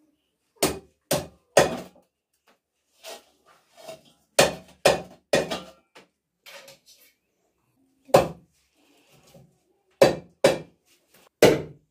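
Large knife chopping a whole plucked chicken into pieces on a wooden stump block: sharp chops, mostly in twos and threes about half a second apart, with short pauses between groups.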